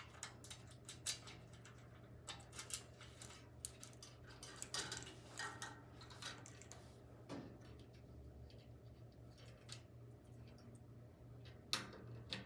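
Faint clicks and light taps of wire leads and their connectors being handled and pushed onto a snap disc's terminals, frequent at first and thinning out after about seven seconds, over a steady low hum.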